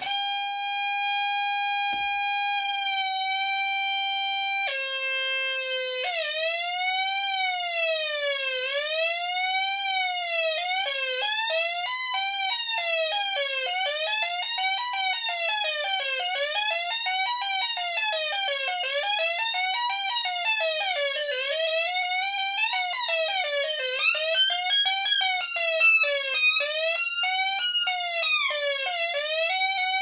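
MFOS Weird Sound Generator synth circuit on a breadboard, fed through a Deep Blue delay pedal, putting out a buzzy electronic tone that holds steady and steps down in pitch twice. About six seconds in, the tone starts swooping up and down like a siren roughly every two seconds as an added LFO sweeps its oscillator's "weird frequency", and from about eleven seconds a choppy flutter is laid over it.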